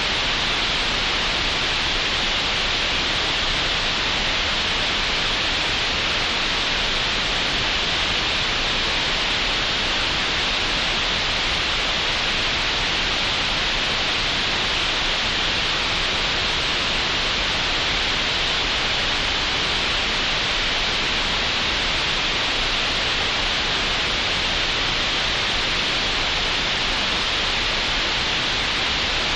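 Synthetic green noise generated in Audacity: a steady, even hiss with no changes, brightest in the upper-middle range.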